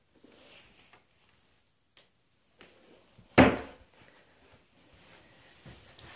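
A storage door being shut: one sharp knock about three and a half seconds in, dying away quickly, with a faint click about a second and a half before it.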